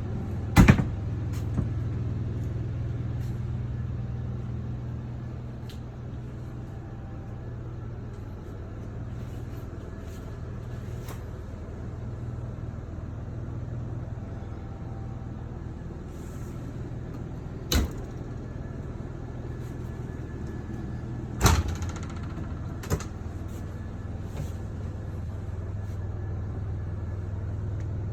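A steady low hum runs throughout. Four sharp knocks sound over it: one just after the start, one about 18 seconds in, and two close together around 21 and 23 seconds in.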